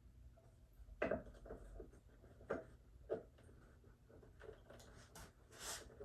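Handling noises while an animatronic prop is assembled and its head fitted: a few soft knocks about one, two and a half and three seconds in, light clicks, and a short rustle near the end.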